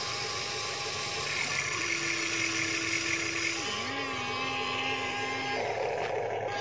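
Electric motors of a Huina RC toy excavator whining steadily as it digs and swings its bucket through soil. The pitch drops a little about four seconds in.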